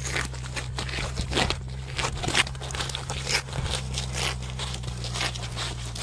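Catfish and eel flopping and sliding on sandy concrete: irregular slaps and gritty scrapes over a steady low hum.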